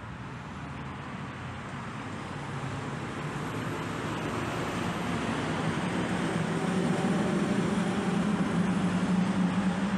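A motor vehicle approaching, its engine hum and road noise growing steadily louder over several seconds.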